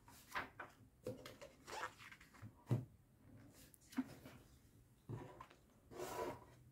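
Glossy magazine pages being turned by hand: a series of paper swishes about once a second, with a couple of sharper taps as pages land flat.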